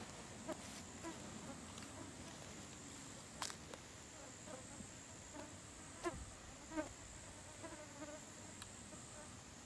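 Faint, steady high-pitched drone of insects, with a few soft clicks scattered through it.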